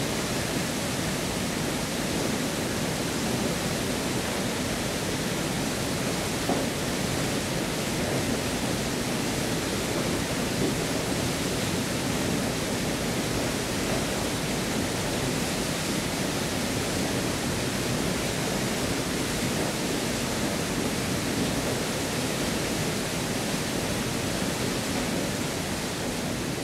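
Waterfall plunging through a narrow rock gorge into a pool: a loud, steady rush of falling and churning water that never lets up.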